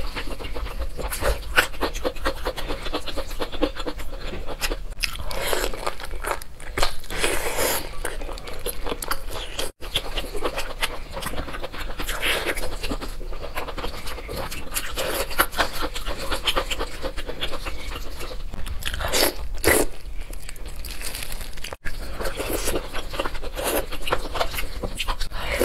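Close-miked eating: biting into and chewing saucy meat on the bone, with many quick crunches and wet mouth sounds. The sound drops out briefly twice.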